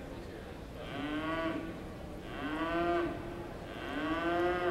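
Cattle mooing: three calls of about a second each, each rising a little in pitch.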